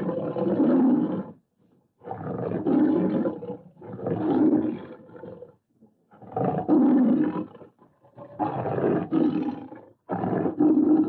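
Big-cat roars edited as a jaguar's voice: about six roars in a row, each one to two seconds long, with short silences between them.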